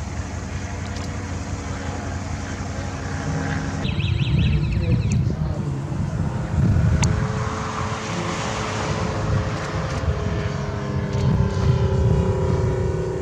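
Rotax 582 two-stroke engine of a Loehle 5151 Mustang ultralight replica running at full power for takeoff and climb. After a sudden cut about four seconds in the engine is louder and rougher, and over the last few seconds its pitch falls steadily.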